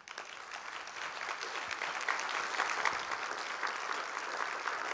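Large auditorium audience applauding, the clapping rising quickly at the start and then holding steady.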